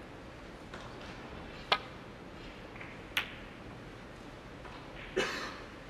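Snooker balls clicking: a sharp click of the cue striking the cue ball, another click about a second and a half later as it hits a ball, then a longer, noisier knock near the end as it cannons into the reds.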